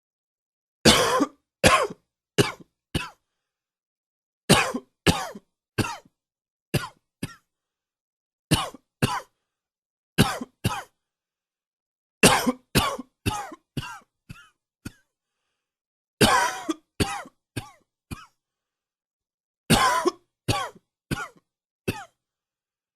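A man coughing in repeated bouts of two to six coughs each, with short silences between; a smoker's cough.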